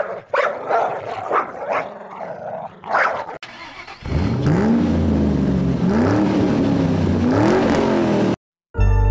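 A dog barking several times in quick succession, followed by an engine revving up again and again, its pitch climbing about every second and a half, until it cuts off suddenly near the end.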